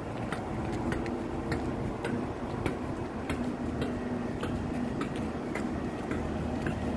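Class 313 electric multiple unit standing with a steady low hum, crossed by regular sharp ticks, a little under two a second.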